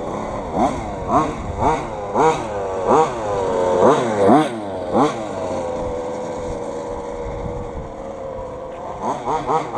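Small two-stroke petrol engine of an FG Modellsport RC car revving in short throttle blips, roughly two a second, then running steadier for a few seconds, with a quick string of blips near the end.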